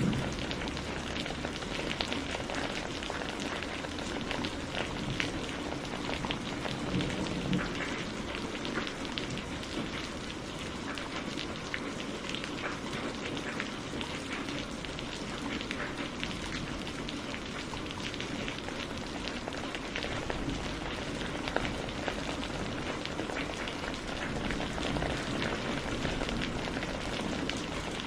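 Steady rain falling on surfaces, a dense even hiss with many small drop patters.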